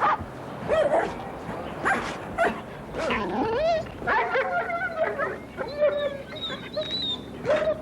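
Dogs barking, yipping and whining, in short separate calls with a few longer rising and falling whines.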